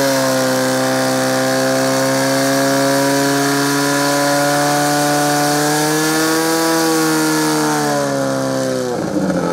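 Portable fire pump's small engine running flat out at a high, steady pitch while it pumps water through the hose lines. Its pitch sags and falls about 8 to 9 seconds in as it is throttled back at the end of the attack.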